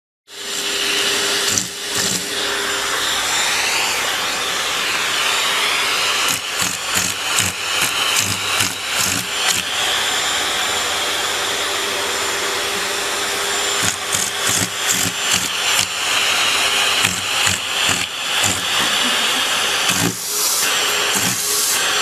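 Vacuum cleaner running with suction at its hose nozzle, a steady drone broken again and again by irregular sputtering as a cat's mouth and paws press on and partly block the nozzle opening.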